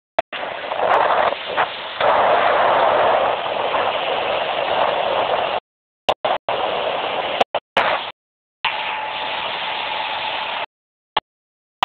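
Wind rushing over the microphone with the noise of a Key West speedboat running across open water. The sound cuts out abruptly to silence several times in the second half.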